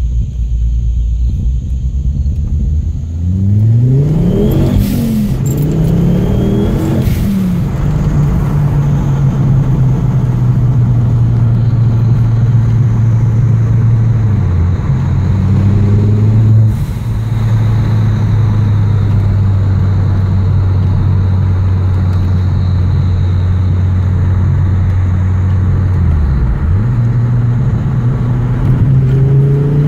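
Ford Focus XR5 Turbo's turbocharged 2.5-litre five-cylinder engine, breathing through a 3-inch custom intake, heard from inside the cabin. It revs up through two quick gear changes a few seconds in, holds a steady cruise, and revs up again near the end.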